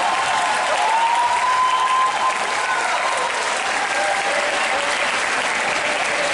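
Large indoor arena crowd applauding steadily, with a few voices calling out over the clapping.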